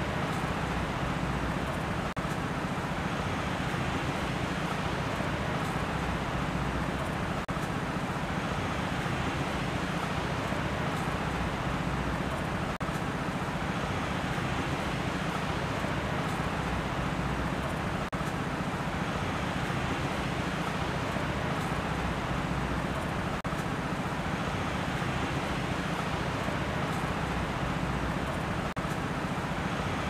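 Steady outdoor ambient noise: a constant rushing hiss over a low rumble, swelling softly and with a faint tick about every five seconds, as from a looped ambience track.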